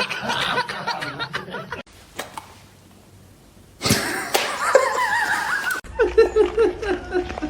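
People laughing in short bursts, with sudden breaks between them.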